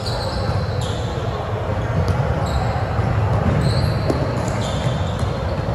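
Indoor volleyball play on a hardwood gym court: sneakers squeaking several times as players shift, with a couple of sharp knocks of ball or feet, over a steady low rumble of the large hall.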